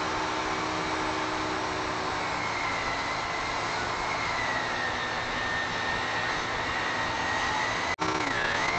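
Table saw running steadily while a crosscut sled carries a glued-up walnut and maple board through the blade; a high whine sags slightly in pitch and dips again briefly near the end as the blade cuts. The sound cuts out for an instant about eight seconds in.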